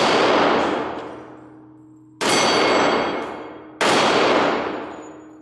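Tisas SDS 1911 pistol in .45 ACP firing three shots, the first right at the start and the next two about two seconds apart. Each shot is loud, with a long echoing tail that dies away over a second or more.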